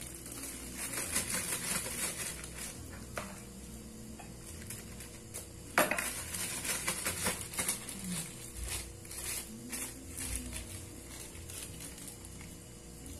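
Thin plastic bag crinkling and rustling as it is filled with soft bait dough and twisted shut, with scattered light clicks and one sharp knock about six seconds in.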